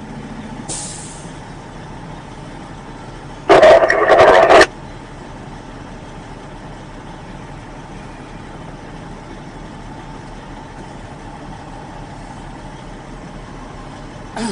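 Heavy log truck's diesel engine idling steadily while the truck sits stopped, with a brief hiss of air about a second in and a loud rush of air from the air brakes, about a second long, a few seconds later.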